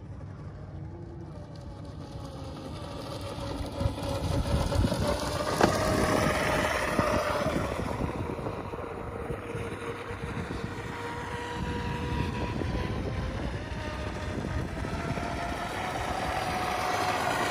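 Pro Boat Blackjack 42 RC boat's 8S brushless motor whining as the boat runs across the water. The pitch glides up and down with the throttle and the whine grows louder about four seconds in. Wind rumbles on the microphone underneath.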